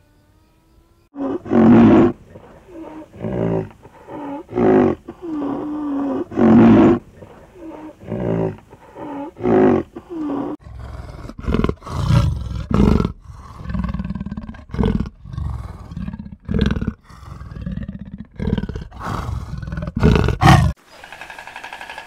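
A rhinoceros calling: short pitched calls that bend in pitch, about one a second. About ten seconds in it gives way to a cheetah's deeper, rougher, louder calls in quick succession.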